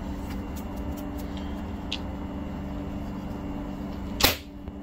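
Light clicks and plastic handling as the air filter is unclipped and lifted off a Stihl 034 AV chainsaw, over a steady hum, with one short, sharp knock a little after four seconds in.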